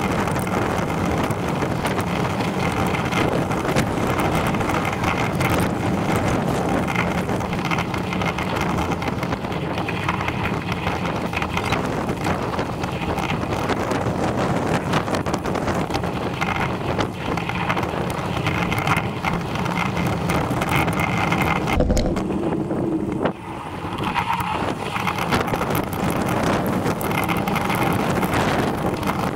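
Steady wind rush over the microphone of a camera on a moving bicycle, mixed with road noise from the tyres on tarmac. A low thump about three quarters of the way through, followed by a brief drop in loudness.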